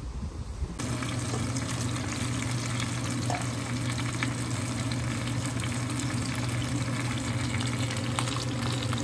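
Fish sizzling as it fries in oil in a square grill pan under a splatter screen, with a pot of nurungji (boiled scorched rice) bubbling at a boil beside it. The crackling starts suddenly about a second in and holds steady over a low hum.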